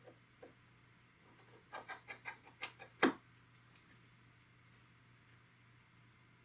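Small tools clicking and tapping during hand work on an iPod Touch: a quick run of about eight sharp little clicks, ending with one louder tap about three seconds in.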